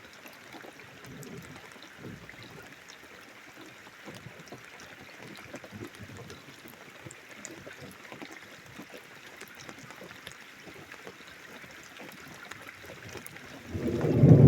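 Steady light patter of rain and dripping water, a faint hiss full of small ticks. Near the end a loud low rumble of thunder rolls in.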